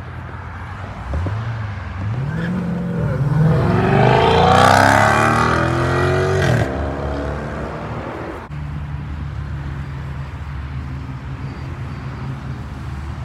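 A car engine revving hard through several upshifts as the car accelerates away, getting louder and stopping abruptly about six and a half seconds in. After a short gap comes the low, steady drone of a sports car engine as a McLaren rolls slowly by.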